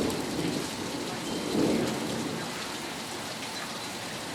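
Heavy rain falling steadily in a thunderstorm, with a low rumble of thunder fading at the start and swelling again briefly about one and a half seconds in.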